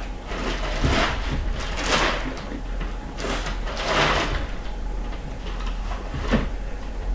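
A fork rummaging through lettuce in a plastic salad container, making several rustling scrapes at uneven intervals.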